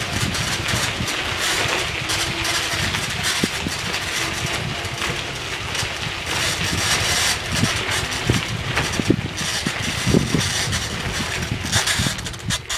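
Bicycle rolling over a gravel trail: a steady rumbling hiss from the tyres, with scattered clicks and rattles.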